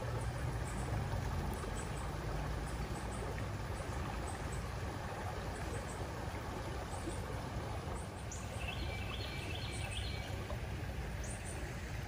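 Steady outdoor ambience of a shallow woodland stream flowing, over a low rumble. A short run of quick repeated bird notes comes in about nine seconds in.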